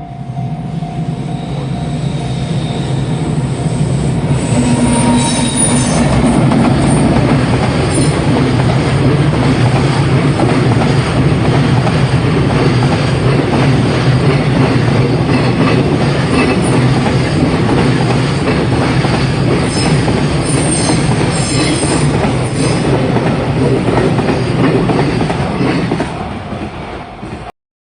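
Two electric freight locomotives, an EF210 leading with an unpowered EF510 in tow, passing close by: a loud rumble of wheels on rail with clattering clicks, building over the first few seconds, holding steady, then easing off and cutting off abruptly near the end.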